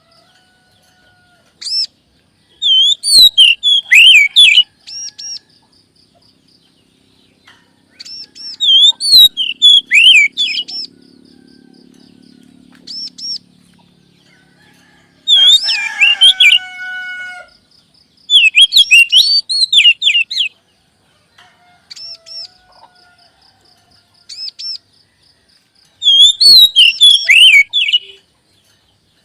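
Oriental magpie-robin (kacer) song from a lure recording: loud bursts of fast, varied whistled phrases every few seconds, separated by short pauses. About halfway through, one phrase holds steadier, lower notes.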